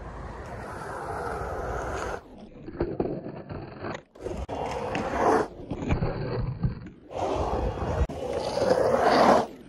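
Skateboard wheels rolling on concrete and the board scraping along a bowl's coping, a steady rushing noise that cuts off abruptly a few times between short clips.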